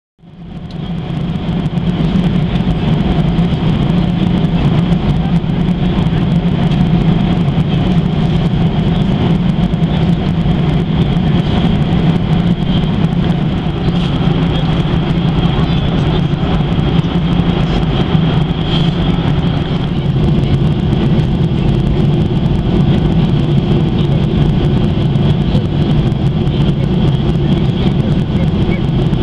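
Steady in-flight cabin noise of a Boeing 737-800, heard from a window seat over the wing: the hum of its CFM56-7B turbofan engines and the rush of air along the fuselage, with a steady high whine on top. It fades in over the first second or two.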